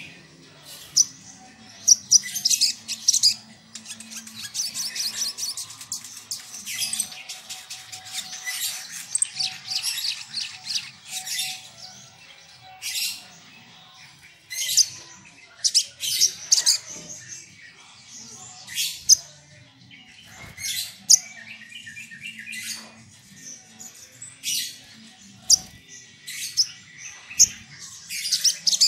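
Male sunbird (sogok ontong) singing: rapid, high-pitched chirps and trilled phrases, packed densely in the first half, then coming in short separate bursts with brief pauses between them.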